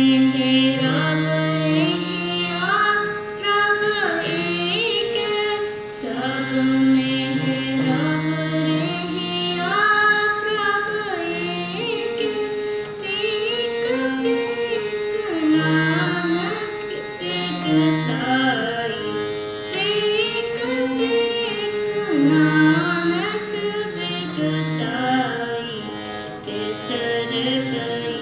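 Sikh kirtan: a harmonium holds steady chords and melody notes while a female voice sings a shabad over it, with gliding, ornamented phrases.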